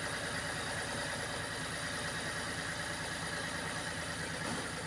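Holden VE Commodore's 3.6-litre LFX V6 idling steadily.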